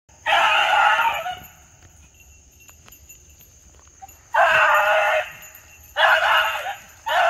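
Beagle baying while running a rabbit's scent trail: three drawn-out bays, each about a second long and a few seconds apart, with a fourth just beginning at the end. The bays are the hound's signal that it is on the rabbit's track.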